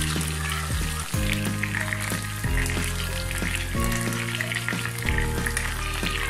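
Battered Bombay duck fish pieces deep-frying in hot oil, a steady sizzle full of small crackles, as a wire skimmer turns them over once one side is fried. Background music with slow, sustained low notes plays under it.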